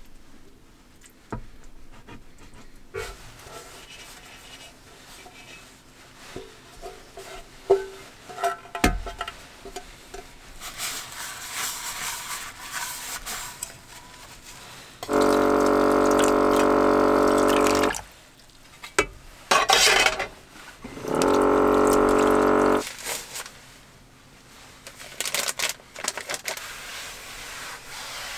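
Dishes being washed at a small camper-van sink: a bowl knocked and rinsed under running water, with a small electric water pump running loudly twice, about three seconds and then about two, starting and stopping abruptly. Light clinks of tableware come before the water.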